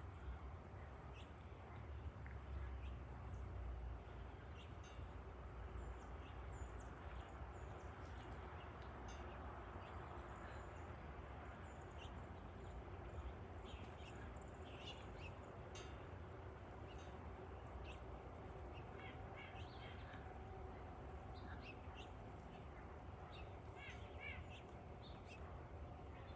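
Faint, steady distant rumble of a high-flying jet airliner, with birds calling in short chirps throughout, more often in the second half.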